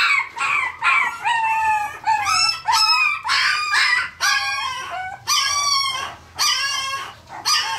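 Parson Russell Terrier puppies yelping and whining, a quick run of high-pitched calls, several a second with short gaps, some sliding in pitch.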